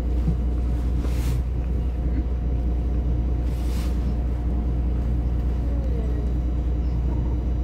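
Steady low rumble of a Solaris Urbino 18 articulated city bus, heard from inside the cabin. Two short hisses come about a second in and again about three and a half seconds in.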